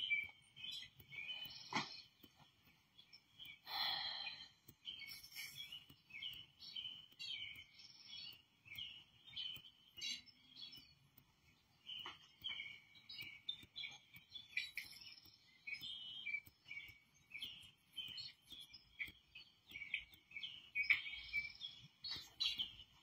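Birds chirping and singing in a bird video played through a TV's speakers: a dense, continuous run of short high chirps, with a louder burst of calls about four seconds in and another near the end.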